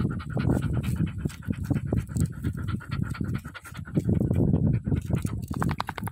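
A dog panting right at the microphone, quick breaths at several a second.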